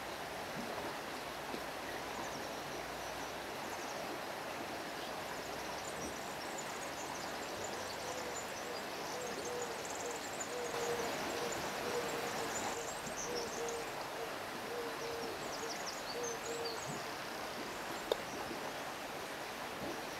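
Shallow river water flowing steadily over rocks. In the middle a bird gives a row of about a dozen evenly spaced low hooting notes, with high twittering over it, and there is one sharp click near the end.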